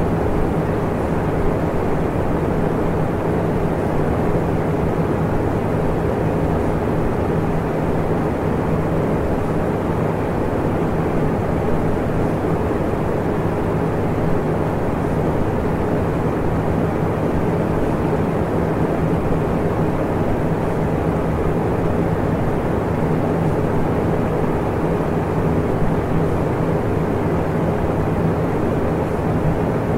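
Steady, unchanging droning noise with a low hum running through it, loud and even, with no separate events.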